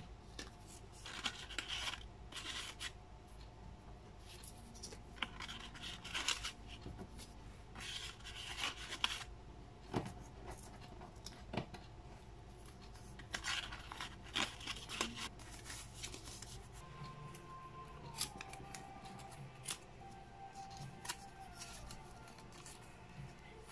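Paper rustling and sliding as die-cut stickers are pushed into a folded kraft paper sleeve, in short scraping swishes every few seconds that grow sparser in the second half. Faint background music plays underneath.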